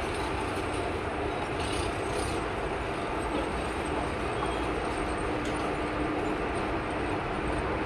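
WAP-4 electric locomotive pulling an express train slowly out of a station: a steady rumble from the locomotive and coaches, with a low steady hum that grows stronger near the end.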